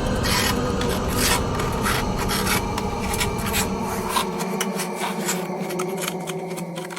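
Horror sound-effect texture: a grating, rasping scrape full of crackles over a low steady drone. The deepest rumble drops away about four and a half seconds in, leaving the drone and the scraping to thin out.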